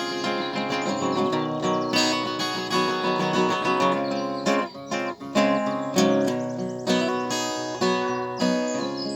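Acoustic guitar strumming chords in an instrumental stretch of a song.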